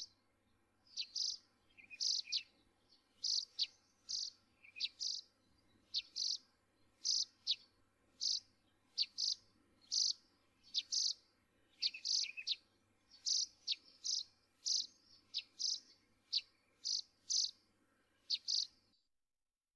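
Repeated short, high-pitched animal chirps, often in quick pairs, one or two a second, over a faint steady hum; they cut off abruptly near the end.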